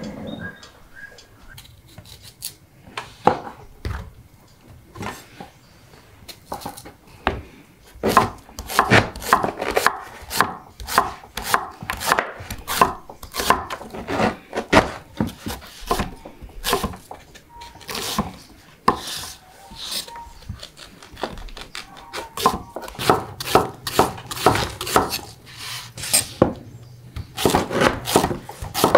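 Knife chopping on a wooden cutting board: sharp knocks, sparse for the first few seconds, then in quick, uneven runs of several strokes a second.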